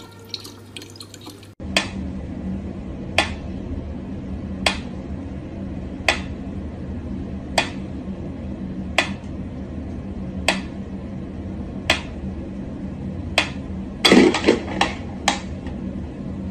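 A thin stream of tap water runs for the first second and a half. Then a mechanical pendulum metronome ticks slowly and evenly, about one tick every second and a half, over a steady low hum. Near the end comes a brief louder scuffle with a few quick, irregular clicks.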